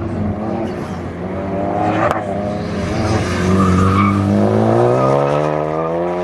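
Ford Focus ST's turbocharged 2.0 L EcoBoost four-cylinder engine pulling hard through an autocross course, its pitch dipping and then climbing steadily over the last two seconds as it accelerates, with tyres squealing and a sharp click about two seconds in.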